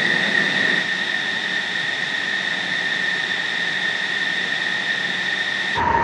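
F-16 Fighting Falcon jet engine running on the ground: a steady high-pitched whine over a rushing hiss. Just before the end it switches abruptly to a lower whine.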